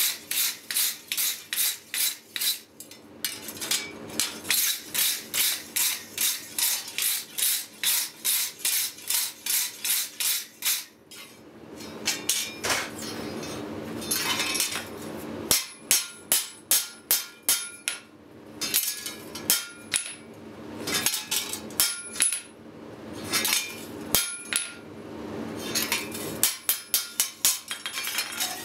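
A steel wire brush scrubbing scale off hot steel on the anvil in quick strokes, about three a second, for roughly the first ten seconds. Then a hand hammer strikes the steel plate on the anvil in short groups of ringing metal blows, with a faster run of blows near the end. A steady low hum runs underneath.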